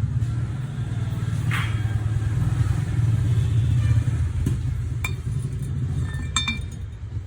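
Steady low engine rumble with a fast flutter, with a few sharp metallic clicks about five and six seconds in.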